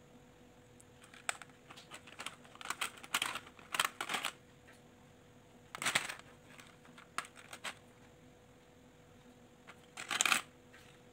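Small plastic beads clicking and rattling against each other and a plastic compartment tray as fingers pick through them and thread them onto elastic cord: a run of irregular clatters in the first few seconds, a short burst about six seconds in, and another near the end.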